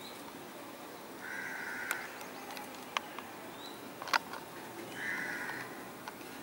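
A crow cawing twice, harsh calls about a second in and again about five seconds in, over a steady faint hiss. A few sharp clicks are heard in between, the loudest about four seconds in.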